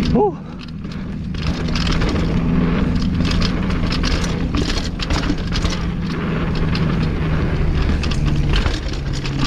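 Downhill mountain bike riding fast down a dirt trail: wind rushing over the camera mic, tyres rolling on dirt, and the bike knocking and rattling over bumps.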